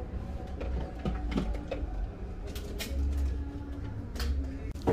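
Barber shop ambience: faint background voices and a few light clicks and knocks, over a low rumble from the camera being moved.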